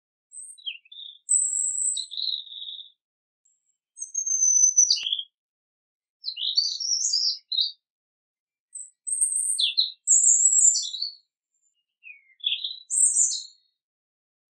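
European robin singing: about six short phrases of high, thin, quickly varied notes and whistles, each a second or two long, with brief pauses between.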